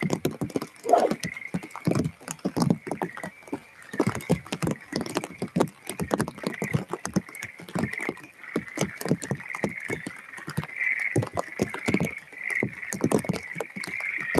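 Rain pattering on the microphone: dense, irregular crackling taps and thumps throughout, over a steady high-pitched chirring.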